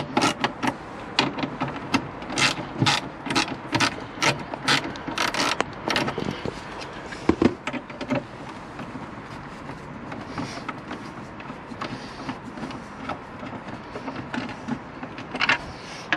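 Ratchet clicking as a T40 Torx screw is wound out of a car's dashboard trim panel, about two to three clicks a second for the first six seconds or so. After that come quieter handling sounds, a single knock, and a few more clicks near the end.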